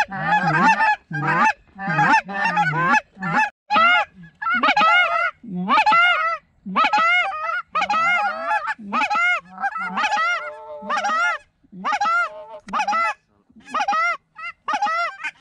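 Goose honking: a rapid, unbroken run of loud, high, bending honks, about two to three a second, with a longer, flatter call about ten seconds in.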